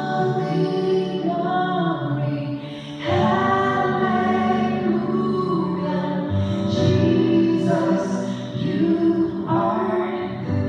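A man and a woman singing a worship song together in duet, holding long notes, swelling louder about three seconds in.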